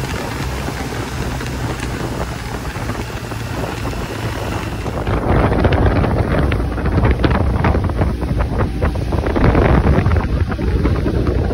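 Wind rushing over the microphone of a moving motorcycle. About five seconds in this gives way to a motorboat running across the water: a low engine rumble under wind noise, with many sharp knocks as the hull hits the waves.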